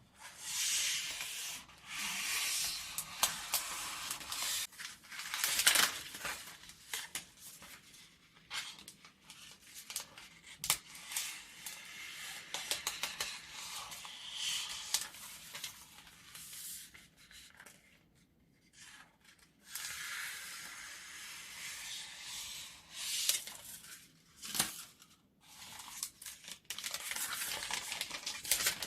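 New scissors sliding through sheets of paper, each cut a long hissing swish made in one stroke, with sharp clicks of the blades between cuts and short pauses.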